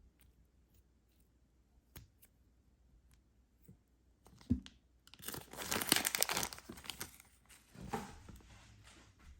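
Candy wrapper being torn open and crinkled: a few light clicks, then about two seconds of dense tearing and crackling, with a shorter crinkle near the end.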